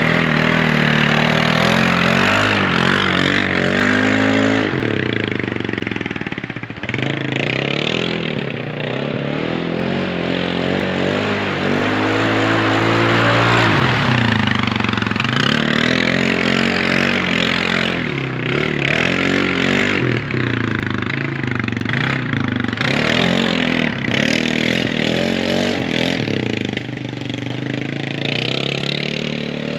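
Four-wheeler (ATV) engine being ridden hard, revving up and down again and again, its pitch rising and falling every few seconds over a constant noisy rush.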